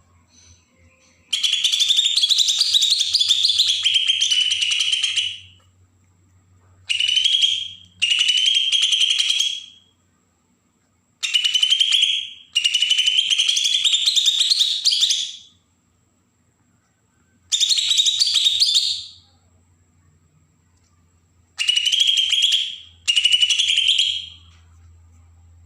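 Cucak ijo (green leafbird) singing its harsh, rasping 'besetan' song in repeated phrases of one to four seconds with short pauses between them. This fast, scratchy song is used as a lure to get young caught birds singing.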